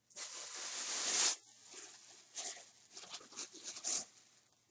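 A gift bag rustling as a hand rummages in it for the next item: one long rustle that grows louder and stops after about a second and a half, then several shorter rustles.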